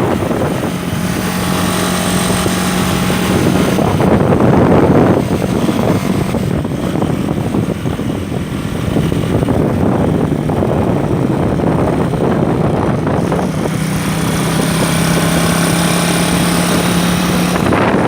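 An engine running at a steady speed, with a steady low hum under a loud rushing noise.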